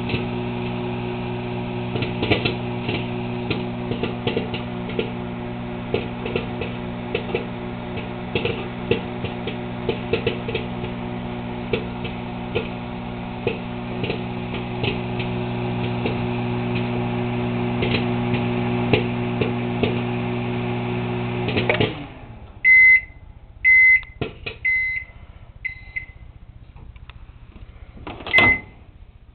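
Microwave oven running with a steady hum while popcorn pops inside it in scattered clicks. About 22 s in the oven stops, then beeps several times about a second apart, with one more beep near the end.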